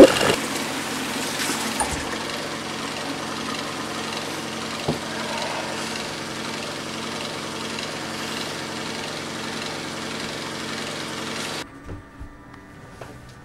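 A steady mechanical drone of a motor running, easing slightly after a loud burst at the start. It cuts off abruptly near the end, leaving a few faint knocks.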